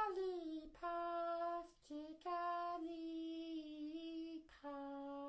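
A man singing unaccompanied in a high voice, holding a few long, steady notes in short phrases; the first note slides down.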